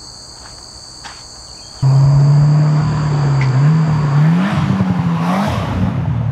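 Insects chirping steadily, then, about two seconds in, a Subaru WRX's turbocharged flat-four with an Invidia R400 cat-back exhaust comes in loud, accelerating toward and past, its exhaust note stepping up in pitch as it revs.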